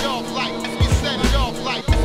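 Hip hop music with a heavy bass-drum beat.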